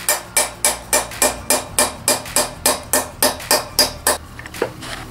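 Hammer tapping on an old wheel bearing used as a drift to drive a new ball bearing into a motorcycle's rear wheel hub: quick, even blows, about four a second, each with a short metallic ring, stopping about four seconds in. The new bearing is nearly flush with the hub.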